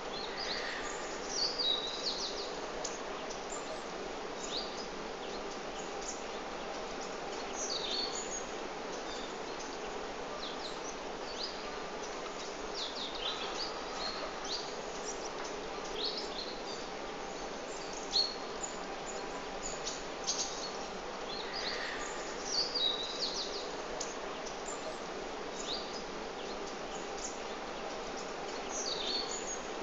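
Birds chirping in short, scattered calls, many of them quick downward sweeps, over a steady background hum.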